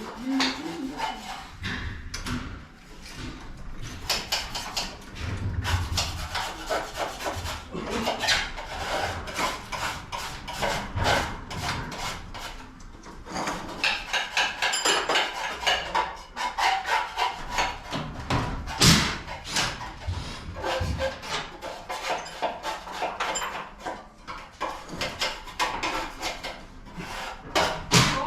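Hands-on work on garage door hardware: a steady run of irregular scraping, rubbing and clicking, with one sharper knock about two-thirds of the way through.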